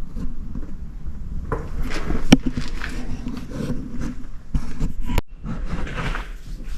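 Metal brake parts being handled: scattered clicks, scrapes and clunks, with one sharp knock about two seconds in, as the brake rotor is fitted back over the parking brake shoes.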